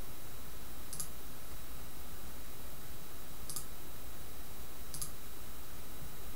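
Three computer mouse clicks, spaced a second or two apart, over a steady low background hum.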